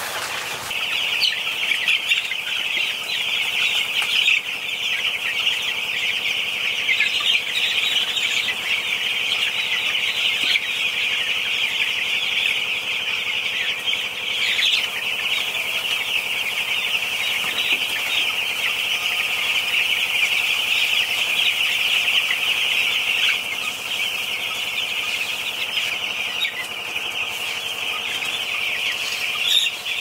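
A large flock of broiler chickens in a shed, thousands of birds calling together as a dense, continuous high-pitched chorus.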